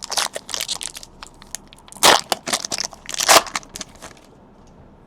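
Crinkly plastic trading-card pack wrapper being crumpled and torn open, a dense crackling with two loud crunches about two and three seconds in; it stops about four seconds in.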